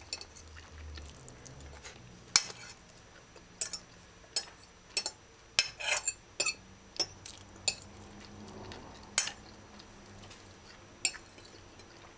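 Metal fork clinking and scraping on a china plate while scooping up rice: about a dozen sharp, irregularly spaced clinks, most of them between two and eight seconds in.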